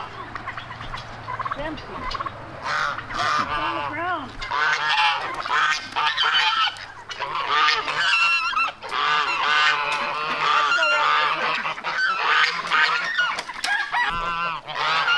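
Domestic geese honking, many short calls overlapping one another almost without a break.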